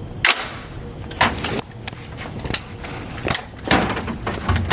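A handful of sharp mechanical clicks and knocks, about five, from a gun being handled as its side button is pressed and its action worked; the first click is the loudest.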